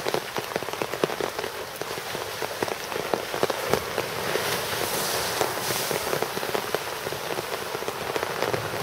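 Rain pattering in many small ticks, with water sloshing and splashing as an African elephant thrashes about in its pool; the splashing is loudest from about four to six seconds in.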